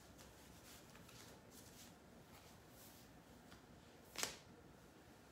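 Faint rustling of items being handled, with one sharp snap about four seconds in.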